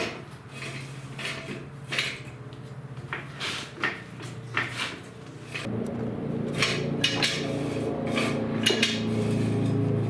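Metal clinking and knocking, a string of separate sharp strikes. A little over halfway through, a steady low hum starts, with a few more knocks over it.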